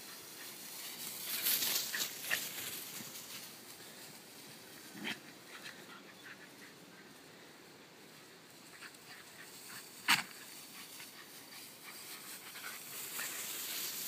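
Shelties playing in tall grass: a few short, sharp dog barks, the loudest about ten seconds in and another about five seconds in. Between them runs a hissing rustle of grass.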